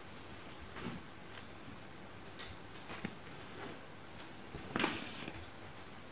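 Hand bead embroidery on fabric stretched taut in a frame: the needle, thread and fabric make faint, scattered light clicks and rustles, with a brief louder rasp about five seconds in.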